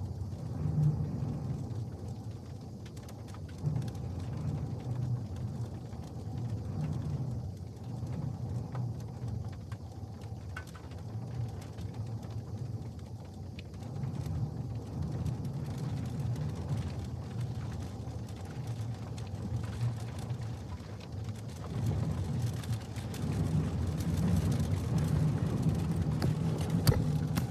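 Gusty storm wind buffeting the van and the microphone: a low rumble that swells and eases in gusts, with faint ticks of rain.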